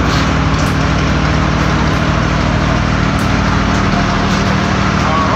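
Engine running steadily: a constant low hum under a dense, even noise.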